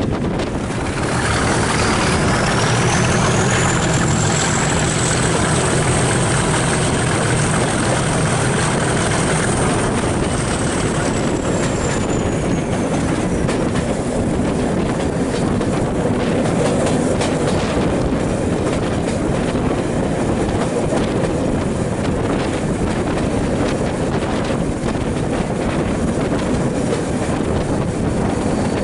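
English Electric Class 37 diesel locomotive hauling a passenger train at speed, heard from an open carriage window with its engine working hard. A high whistle climbs over the first few seconds, holds, and fades out about thirteen seconds in, over steady wheel-on-rail noise and rushing air.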